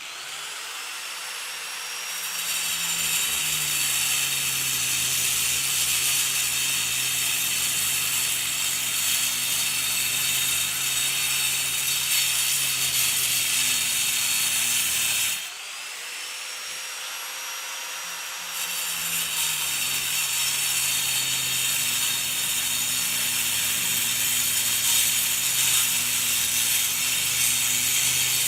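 Angle grinder with a cutting disc: the motor spins up with a rising whine, then the disc bites into concrete with a loud, steady grinding hiss. About halfway through the sound drops suddenly, the motor whine rises again as it runs free, and a few seconds later the disc goes back into the concrete.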